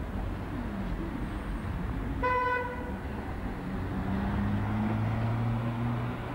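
Street traffic noise with one short horn toot about two seconds in, a single steady tone lasting under a second. From about four seconds in, a low steady motor hum builds and holds.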